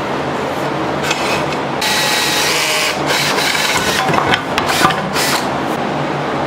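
Scraping and rubbing noises in a workshop, with a few light knocks, over a steady low hum; the scraping is loudest about two seconds in.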